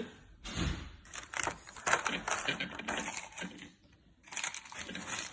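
Dense, dry scraping and rustling with rapid light clicks, in two stretches with a short lull about four seconds in: the freshly ground coffee powder being scraped out of the small grinder jar.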